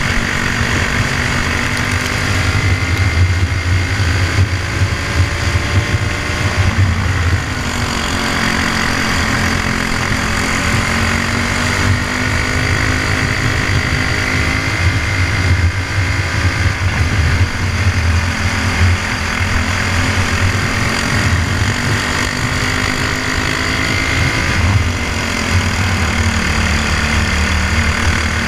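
Briggs & Stratton Animal single-cylinder four-stroke kart engine running hard at racing speed, heard on board. The revs drop twice, about a quarter of the way in and again near the end, as the kart slows for corners, and they climb again after each dip.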